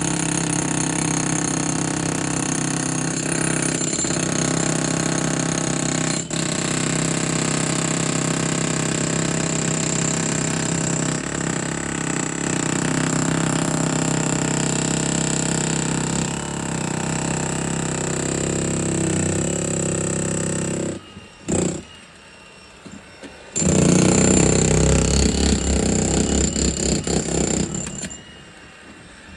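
Jackhammer breaking up concrete, running steadily for about twenty seconds, then stopping. After a short burst and a pause it hammers again with rapid heavy blows for a few seconds before stopping near the end.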